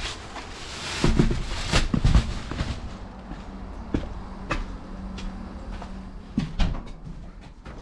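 Footsteps and handling knocks from someone carrying a large bag down concrete steps, a string of irregular thumps, then the clunks of a house door being opened near the end.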